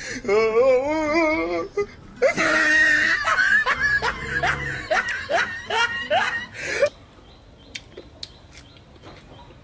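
Laughter: a high, wavering laugh for about a second and a half, then a loud run of rising whoops lasting about four and a half seconds. It stops about seven seconds in, leaving only a few faint clicks.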